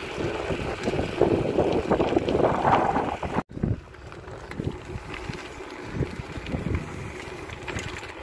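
Wind buffeting a phone's microphone while riding a bicycle, a steady rushing noise with low gusty thumps. About three and a half seconds in it cuts off sharply and comes back quieter and gustier.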